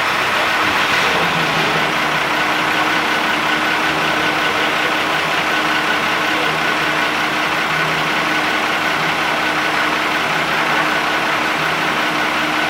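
An engine idling steadily with an even hum that does not change.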